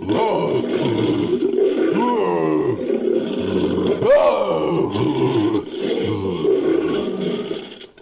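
Made-up creature call: layered roars and growls with several swooping rises and falls in pitch, running continuously and fading out near the end. It is built by mixing a human voice with recorded monster and big-cat roars.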